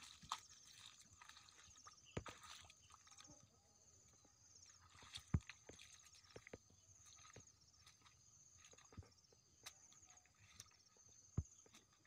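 Footsteps on a wet, muddy dirt path through grass: a few scattered soft thuds and clicks over a faint, steady, high-pitched chirring in the background.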